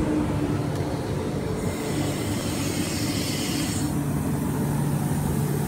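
Queensland Rail EMU electric multiple-unit train moving off from the platform: a steady low electric hum over rolling noise, with a hiss in the middle that comes and goes.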